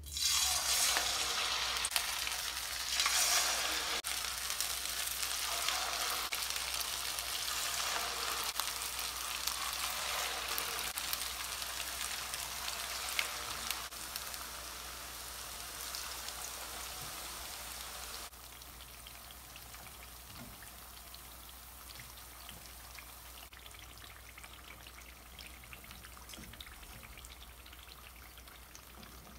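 Chakli spirals of rice-flour dough deep-frying in hot oil: a loud crackling sizzle starts the moment the dough hits the oil. The sizzle eases off over time, then drops abruptly to a quieter, steady sizzle about two-thirds of the way through.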